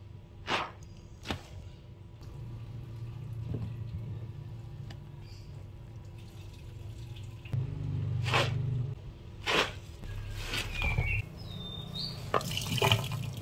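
Sudsy scrub sponge squeezed and dunked in a sink of soapy water: wet squelches, splashes and dripping, with a handful of sharper squishes spread through.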